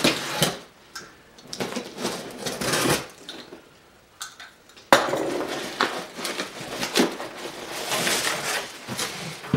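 A small knife slitting the packing tape on a cardboard box in a few scraping strokes, then, after a short pause and a sudden sharp click about five seconds in, the cardboard flaps being pulled open with continuous rustling and scraping.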